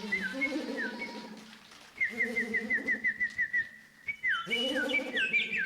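Bird-like calls: low, dove-like cooing in three stretches, overlaid with high whistled notes that slide down, including a quick trill of about eight short down-slurred chirps a second.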